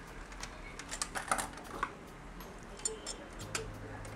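Irregular light clicks and taps of hard plastic and metal PC parts being handled while a graphics card is fitted into a motherboard's PCIe slot, a cluster of them about a second in and a few more later.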